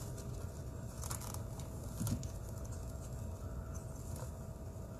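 Faint handling noises: light plastic clicks and rustles as parts of an iRobot Braava Jet M6 mopping robot are fitted together by hand, over a low steady background rumble.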